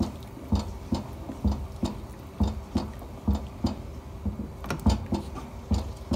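A spatula stirring thick mutton gravy in a pan, knocking and scraping against the pan in a steady rhythm of about three strokes a second.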